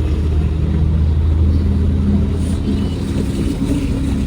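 Car engine and road noise heard from inside the cabin while driving: a steady low drone with an engine hum above it.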